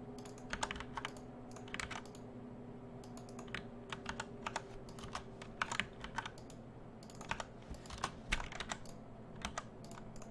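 Computer keyboard keys clacking in irregular runs of taps, as during keyboard-shortcut work in 3D modeling software, over a faint steady hum.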